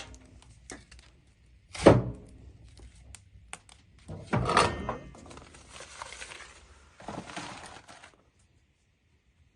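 Kitchen items handled on a counter: a loud knock about two seconds in, a second knock with a short metallic ring about four and a half seconds in, then a few seconds of rustling noise.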